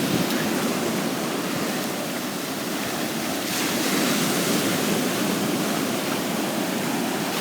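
Surf breaking and washing up on a sand beach, a steady rush that swells a little about halfway through.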